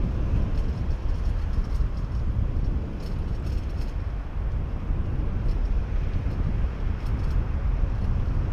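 Steady low rumble of wind buffeting the GoPro's microphone and of tyres rolling over pavement on a fast downhill bicycle ride, with a few faint clicks.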